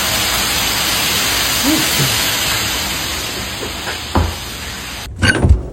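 A steady, loud hiss, like spraying water or steam, that eases slightly and then cuts off suddenly about five seconds in, followed by a few sharp knocks.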